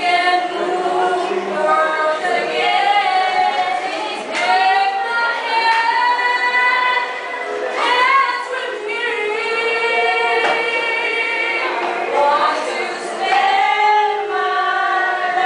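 A small group of voices singing a song together, women's voices most prominent, with long held notes.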